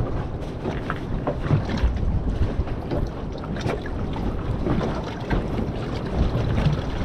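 Wind buffeting the microphone and sea water slapping against the hull of a small fishing boat rocking in a heavy swell, with scattered light knocks.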